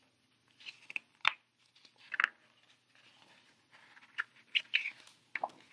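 Paper pages of a picture book being handled and turned: a string of short rustles and crackles. The loudest come about a second in and just after two seconds, with a quick cluster near the end.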